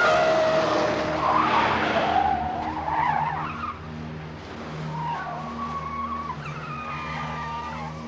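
Car tyres squealing as a sedan skids, loudest in the first three seconds, with fainter wavering squeals later, over a low pulsing tone.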